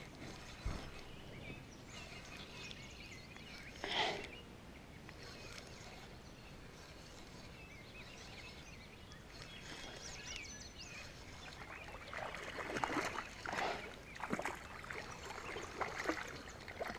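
A hooked fish splashing and thrashing at the water's surface, several short splashes in the last five seconds, over a quiet outdoor background. There is a single knock under a second in and a brief burst about four seconds in.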